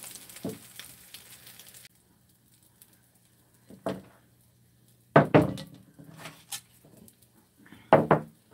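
An egg-battered aralia-shoot pancake sizzling in oil in a frying pan, the hiss stopping abruptly about two seconds in. Then a few short knocks and clatters of dishes on the table, the loudest about five seconds in and again near the end.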